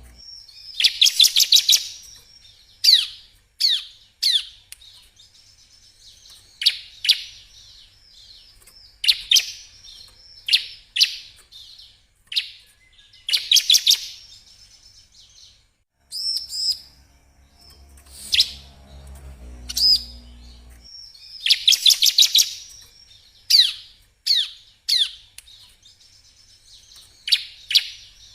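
Bar-winged prinia (ciblek) singing: loud, fast trilled bursts repeated about every nine to ten seconds, with short sharp single notes scattered between them.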